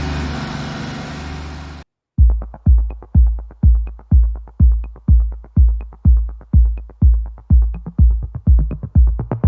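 TYM T25 tractor's diesel engine running at raised throttle for under two seconds, cutting off suddenly. After a brief gap comes electronic music with a steady low kick-drum beat of about two beats a second.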